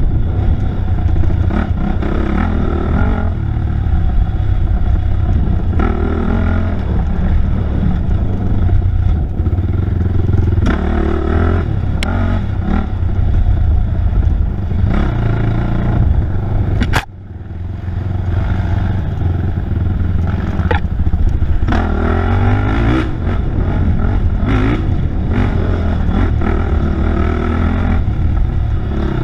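Off-road racing motorcycle engine heard from on the bike, rising and falling with the throttle as it rides a rough wooded trail. About seventeen seconds in, the engine drops off sharply, then builds back up.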